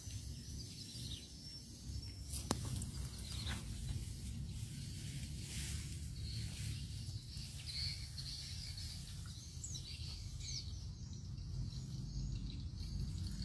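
Footsteps and rustling through tall dry grass and weeds, with a low wind rumble on the microphone and a few faint bird chirps near the ten-second mark.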